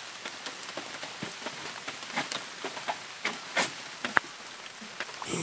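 Rain falling on broad banana leaves: a steady patter with many irregular sharp taps of drops hitting the leaves.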